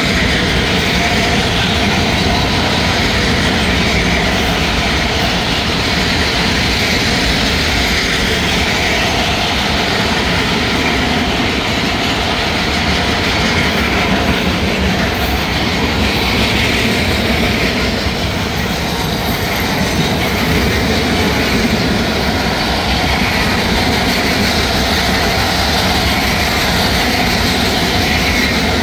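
BNSF double-stack container freight train, its well cars rolling past at speed: a loud, steady noise of steel wheels running on the rails.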